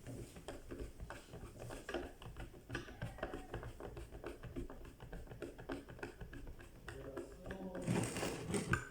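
Rapid small clicks, taps and rattles of hard parts being handled and worked on, with a louder clatter about eight seconds in.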